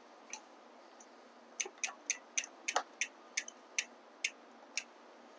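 A run of about ten light metallic clicks, roughly three a second, starting about a second and a half in, as a 4 mm hex tool loosens the crank arm pinch bolts on a Bafang M600 mid-drive e-bike.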